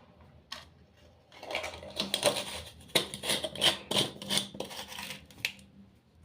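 A kitchen utensil clicking, tapping and scraping against a mixing bowl in a quick irregular run of small knocks for about four seconds, as ingredients are handled and mixed for dough.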